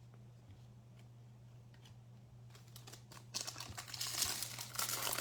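Foil trading-card pack wrapper crinkling and tearing open, starting about three seconds in after a few faint ticks of handling.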